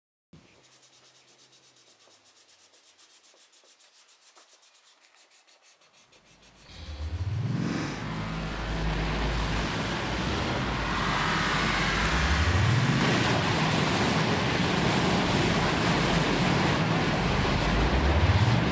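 A vehicle engine comes in loud about six seconds in, after a quiet stretch. Its pitch climbs repeatedly, rising and dropping back a few times, like acceleration through gears.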